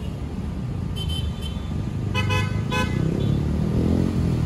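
Road traffic with car and motorcycle engines running. A faint short horn toot sounds about a second in, then two or three short horn toots follow around two to three seconds in.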